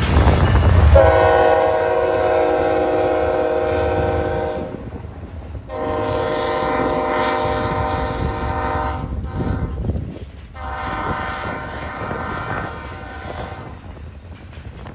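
Diesel locomotive air horn sounding several notes at once: two long blasts, then a shorter, softer third, over the rumble of a passing train. The rumble is loudest in the first second.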